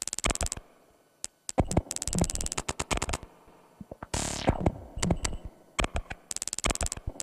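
Electronic music: bursts of rapid, stuttering drum-machine hits, with a falling synth sweep about four seconds in.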